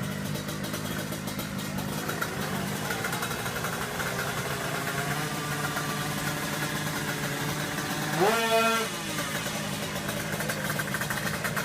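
Motorcycle engine idling steadily, with one quick rev up and back down about eight seconds in.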